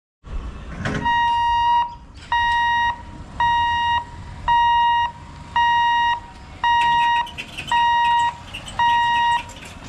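Level-crossing warning hooter beeping steadily at about one beep a second, eight beeps in all, warning that a train is approaching the gate.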